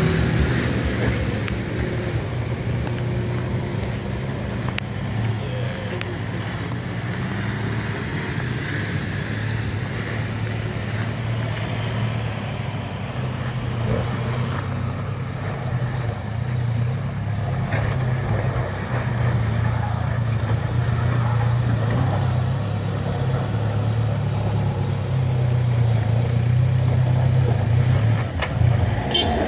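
Four-wheel-drive engines working at low speed up a rocky off-road climb: a steady low drone that grows louder in the second half as a vehicle comes closer.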